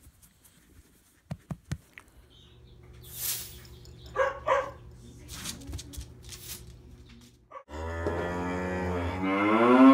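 A cow mooing once, a long, loud call that rises in pitch near its end. Before it there are a few soft clicks and a steady low hum broken by short hissing sounds.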